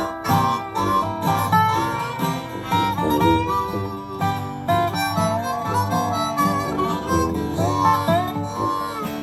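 Instrumental break of an acoustic country blues: a harmonica plays the lead with bending, held notes over plucked acoustic guitar and dobro, with a sousaphone on the bass.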